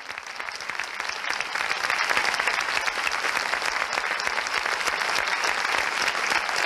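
Audience applauding: many hands clapping at once, building over the first couple of seconds and then holding steady.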